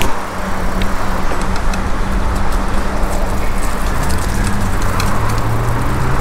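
Road traffic running steadily alongside, mixed with the rolling noise of a bicycle on a concrete sidewalk, with a few light clicks. A low engine-like hum drops in pitch about four seconds in.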